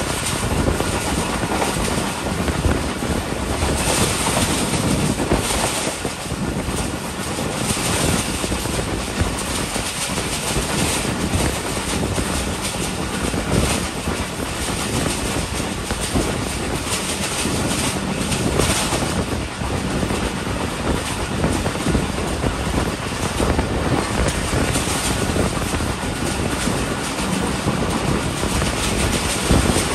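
Passenger train running at speed, heard from aboard: a steady rush of wheel-on-rail and wind noise. There are several louder clatters, the first a few seconds in as the train crosses a small railway bridge.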